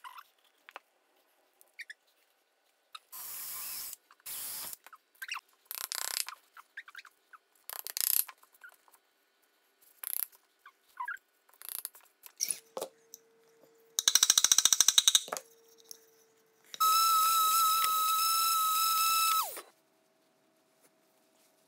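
Woodworking bench sounds: scattered handling noises and short taps of a hammer driving wooden dowels into a pine frame. Near the middle comes a quick run of rapid clicks. Then a small electric tool motor runs with a steady whine for about two and a half seconds and winds down.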